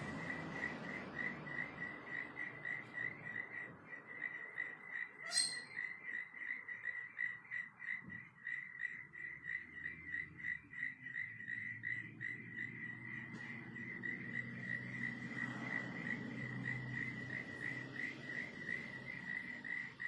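A cricket chirping steadily at one pitch, about three chirps a second, over a low background hum, with one brief high chirp about five seconds in.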